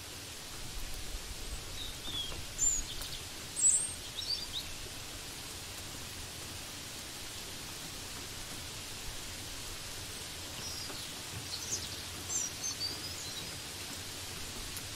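Small birds chirping in short, high calls, in one cluster about two to five seconds in and another around eleven to thirteen seconds, over a steady hiss of rain.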